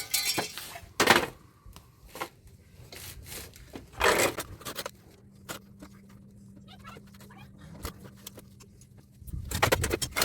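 Intermittent knocks, clatters and scrapes of hand work on an air-conditioner condenser unit being stripped for scrap, over a faint steady low hum.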